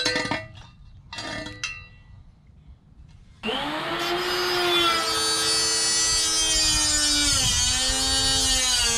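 Power tool cutting through a steel exhaust pipe. After a few faint clicks, about three and a half seconds in it starts up and runs with a loud, steady whine, and its pitch briefly sags about two thirds of the way in.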